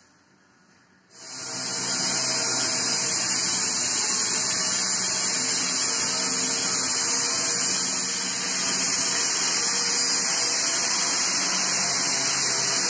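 Electric arc welding on a stainless steel tank: a steady, loud hiss and buzz from the arc. It starts suddenly about a second in and holds without a break.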